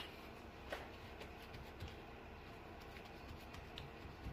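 Faint rustling and dabbing of a paper towel patting raw lamb breast dry, with a few light clicks, the sharpest right at the start.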